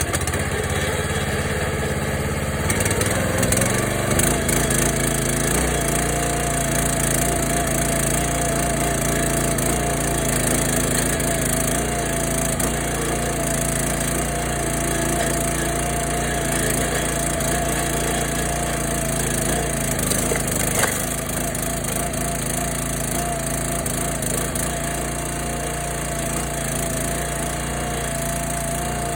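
A log splitter's Kohler 6.5 hp single-cylinder engine runs steadily, with a steady whine over it; the low engine note shifts about three to four seconds in as it comes under load. A sharp crack about twenty-one seconds in, as wood splits.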